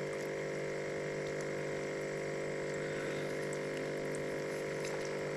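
A small electric motor humming steadily, with an even tone that does not change.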